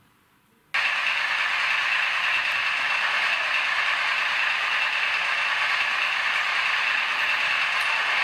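Model diesel locomotive running on track: a steady mechanical whir of motor and gears with wheel noise on the rails, starting suddenly about a second in.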